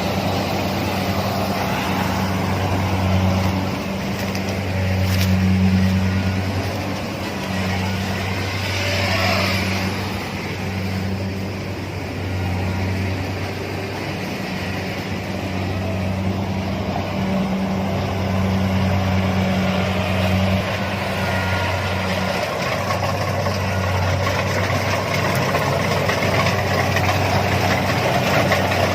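Kubota DC-70 combine harvester running, its diesel engine a steady low drone over mechanical clatter, growing louder and softer by turns.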